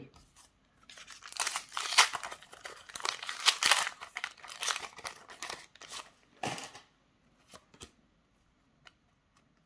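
A Panini Adrenalyn XL trading-card pack being torn open by hand, its wrapper crinkling and ripping in an uneven run of rustles for about six seconds. After that come only a few faint clicks as the cards are handled.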